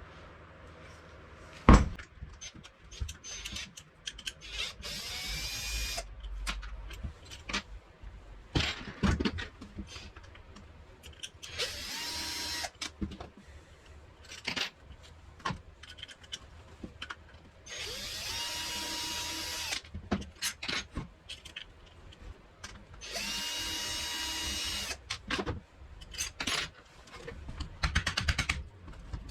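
An electric power tool runs in four short bursts of about one and a half to two seconds each, every burst spinning up to a steady whine. Between the runs there are sharp knocks and clatter of workpieces and tools being handled.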